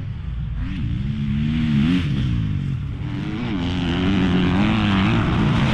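Motocross bike engine revving up and down repeatedly as the rider works the throttle, getting louder as it approaches.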